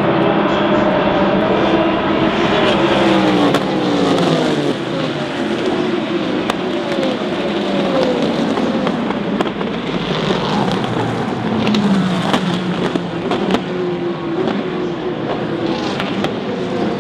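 Several endurance race cars running past at speed, one after another, their engine notes sliding up and down in pitch as they pass and change gear.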